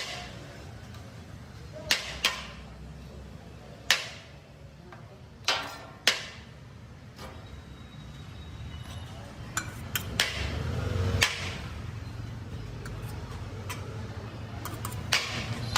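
Metal utensils knocking and clanking against a large metal biryani pot: sharp, short knocks that ring briefly, every second or two and sometimes in quick pairs, over a low steady hum.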